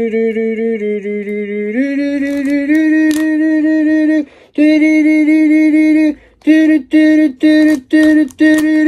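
A voice holding long, steady sung notes that step up in pitch twice, then a string of about five short held notes broken by brief gaps near the end.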